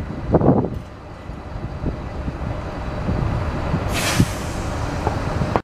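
AnsaldoBreda Sirio tram running along street track, a low rumble under city traffic. A brief sharp hiss comes about four seconds in.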